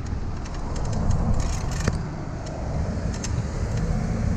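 Wind rumbling on the microphone of a camera riding on a moving bicycle, mixed with road noise and scattered light clicks and rattles.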